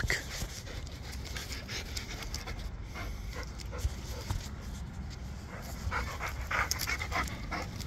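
A boxer-type dog panting in quick, repeated breaths while walking on a leash, the breaths louder near the end, over a steady low rumble.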